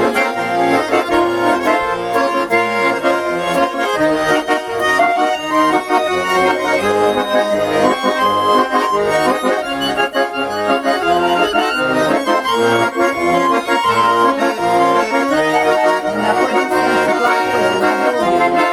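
Bayan and garmon playing together in an instrumental passage of a Russian song: a melody over a steady, regular bass-and-chord accompaniment.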